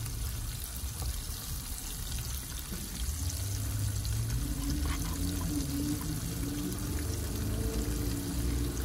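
Flour-coated freshwater prawns sizzling as they shallow-fry in hot oil in a pan, a steady frying hiss. About three seconds in, a low steady hum joins it.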